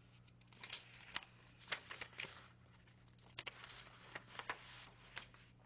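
Sheets of paper being shuffled and leafed through: a string of short, faint rustles over a faint, steady low hum.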